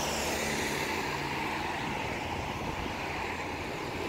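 Steady low engine hum under a continuous wash of wind and open-air noise.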